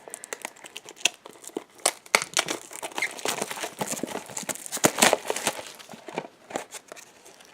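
Funko Mystery Minis blind-box packaging being opened: an irregular run of crinkling and tearing of the foil bag and cardboard box.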